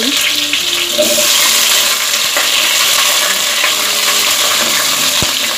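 Halved potatoes sizzling in hot oil in a pot as a silicone spatula stirs them: a loud, steady hiss.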